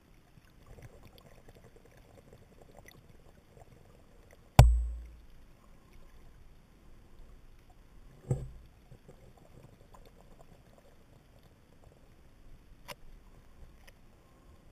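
Underwater sound picked up by a camera in shallow sea water: a faint steady hiss with scattered small clicks. It is broken by two sharp thumps about four seconds apart, each with a short low boom after it, the first the louder.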